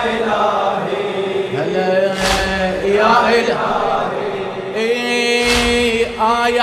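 Men's voices chanting a Shia latmiyya lament in long drawn-out notes, the congregation joining in together. Twice, about three seconds apart, comes a heavy unison thump of hands striking chests (latm), keeping the beat.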